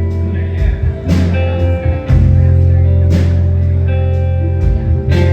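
Live band playing a blues-rock number: guitar and held bass notes that change every second or two, over drum hits about once a second.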